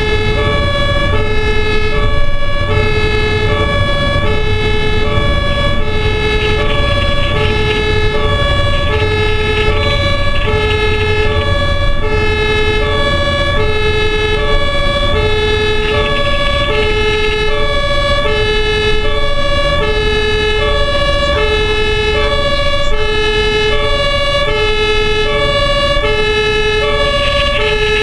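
An ambulance's German two-tone siren (Martinshorn) sounding on an emergency run, a high and a low tone alternating steadily, one full cycle about every second and a half. Under it runs the rumble of the engine and tyres, heard from inside the cab.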